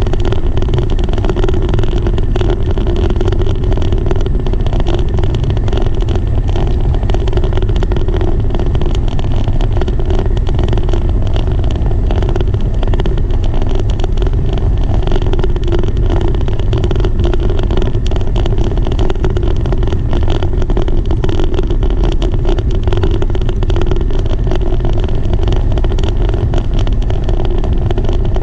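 Steady loud rumble of wind buffeting the microphone while riding along a wooden boardwalk, with a dense rattle of wheels rolling over the boards.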